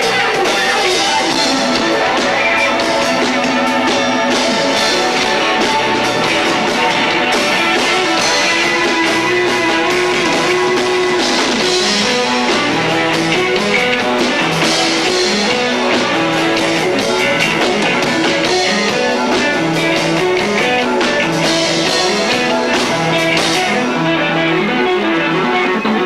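Live rock band playing loud and distorted, with electric guitar over bass and drums, recorded through a 1990s camcorder's built-in microphone.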